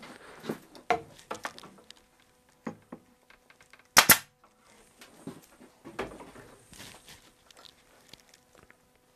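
Pneumatic upholstery stapler firing about four seconds in, one sharp shot heard as two cracks very close together as it drives a staple through the folded seat fabric into the frame. Around it, soft rustling and small clicks from hands folding and smoothing the fabric.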